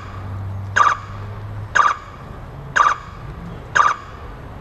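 Electronic countdown beeps from the race timing system over the PA, one short beep a second, four times, counting down to the start of an RC car race.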